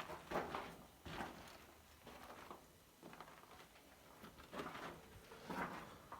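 Footsteps scuffing and crunching on a rocky cave floor, an uneven step about every second.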